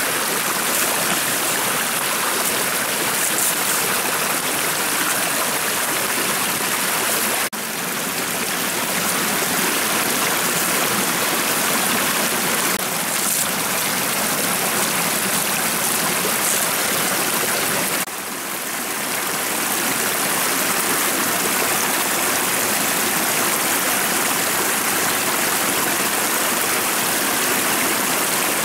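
Shallow rocky stream running over stones: a steady rushing and babbling of water, with two abrupt small drops in level about a quarter and two-thirds of the way through.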